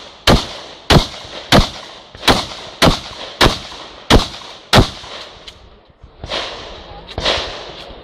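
Shotgun fired in rapid succession: eight sharp shots about two-thirds of a second apart over the first five seconds. A few softer, duller bangs follow near the end.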